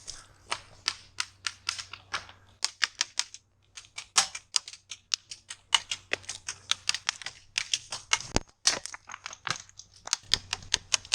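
Airsoft guns firing: sharp, irregular clicks and snaps, several a second, some bunched into quick runs.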